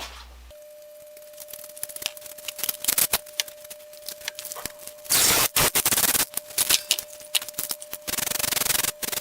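Aerosol spray-paint can being shaken, its mixing ball rattling in quick clicks, with two hissing sprays of about a second each, one just past the middle and one near the end.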